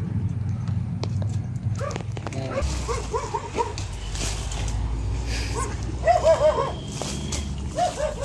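A dog barking in short runs of several barks, loudest about six seconds in, over a steady low rumble.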